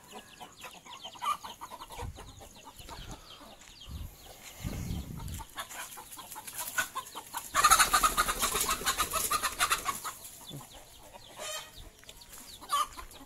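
Kampung chickens clucking, with one louder, harsher outburst about two seconds long in the middle.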